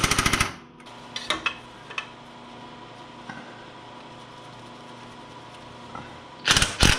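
Cordless impact driver hammering a bolt tight in a rapid burst of strokes for about half a second at the start, then a few light clicks over a steady low background, and two loud knocks near the end.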